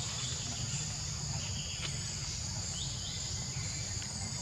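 Steady shrill chorus of insects, with a low hum underneath and a few faint, short rising chirps.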